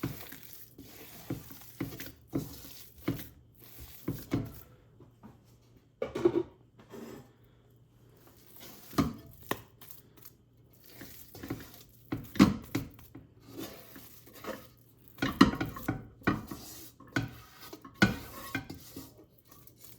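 A metal spoon knocking and scraping against a cooking pot in irregular clinks, roughly one a second with some pauses, as the shami kebab mixture is stirred.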